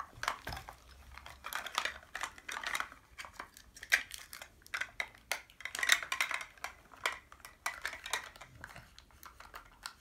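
Hard plastic surprise-ball capsule being twisted and prised apart by hand: a continuous run of small plastic clicks, knocks and scrapes.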